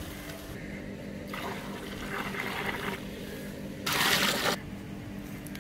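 Water poured from a metal jug into a large aluminium cooking pot of fried onions and oil, splashing and bubbling in several pours, the loudest about four seconds in.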